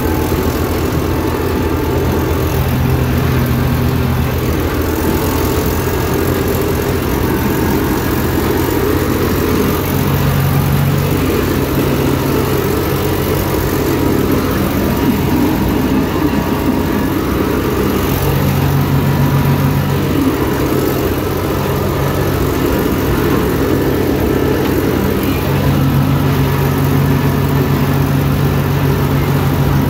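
Fiat 445 DT tractor's diesel engine running steadily under load, heard from inside the cab, over a dense whirring and rushing that rises and falls a little in spells during corn chopping.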